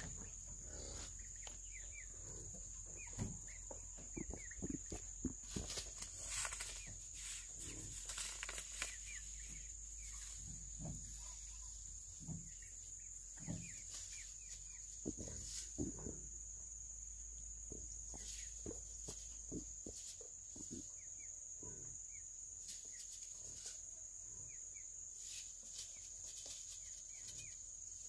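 Steady high insect drone, like crickets, with scattered soft rustles and knocks from hands working loose soil, busiest in the first third.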